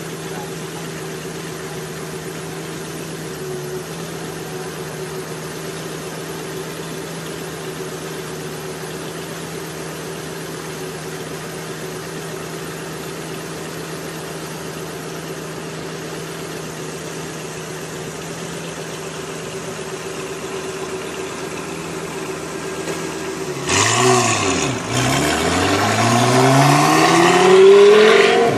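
A car engine idling steadily; then, near the end, the Lamborghini Gallardo's V10 blips once and pulls away hard, its pitch climbing steeply and getting much louder as it accelerates. Heard from inside a car stopped behind it.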